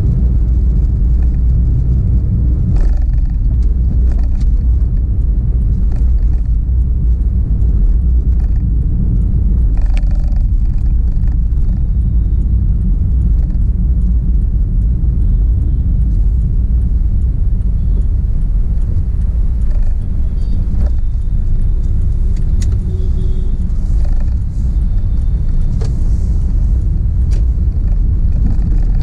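Steady low rumble of a car driving, heard from inside its cabin: engine and tyre noise at an even level, with a few faint clicks.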